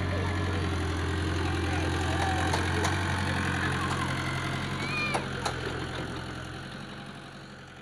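Komatsu mini excavator's diesel engine running steadily under hydraulic work as the machine swings and raises its boom, with a few sharp clicks about five seconds in. The sound fades out over the last couple of seconds.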